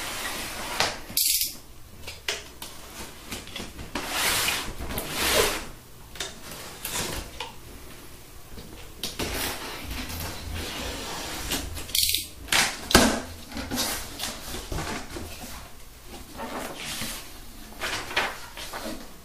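Hands opening a cardboard box: packing tape peeled and torn off the top, the cardboard flaps pulled open, and paper rustling near the end. The noises come as uneven scraping, tearing strokes, loudest a few seconds in and again around the middle.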